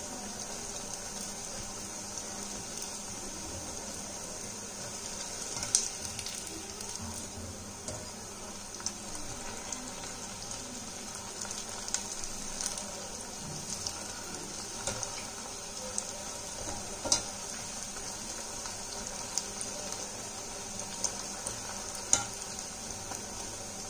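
Batter-coated potato pieces deep-frying in hot oil: a steady sizzle, with sharp clicks now and then, the loudest about six, seventeen and twenty-two seconds in.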